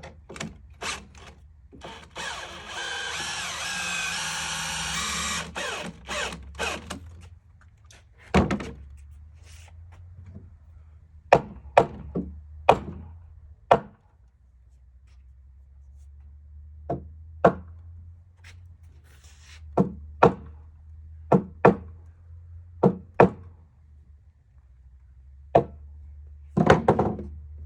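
Wooden knocks and thunks as 4x4 studs are handled and shifted flush, many of them in quick pairs. About two seconds in, a continuous noisy run lasts about three seconds.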